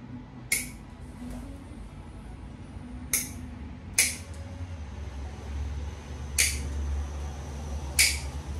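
Five sharp, separate snaps of hand-held dog nail clippers cutting through a Swiss Shepherd's nails, one every second or two, over a low background hum.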